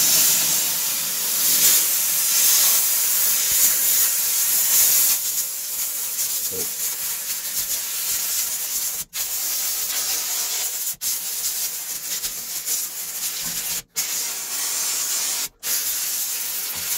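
Kärcher steam cleaner's narrow point-jet nozzle blasting steam onto limescaled stainless steel: a loud, steady hiss that breaks off for a split second four times in the second half. The steam is loosening the limescale.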